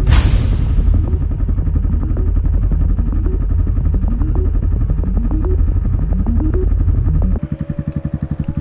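Quad (ATV) engines running, the pitch rising again and again as they are revved, with a loud burst of noise right at the start. After a cut near the end, an engine idles more quietly with a steady pulse.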